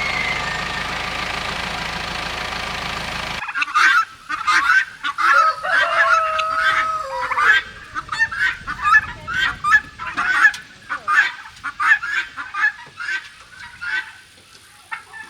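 A steady engine drone for about three seconds, then after a sudden cut, a flock of poultry calling: many short honking calls with a few longer held ones, thinning out toward the end.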